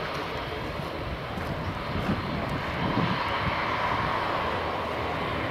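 Jet engines of an Airbus A319 running on its landing roll down the runway: a steady rush with an engine whine that grows stronger about halfway through.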